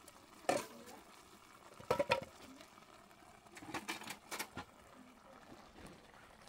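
Metal cookware clinking and knocking as a metal bowl is set down and a kettle is picked up: one knock about half a second in, a quick cluster of sharper clinks around two seconds, and a few more around four seconds.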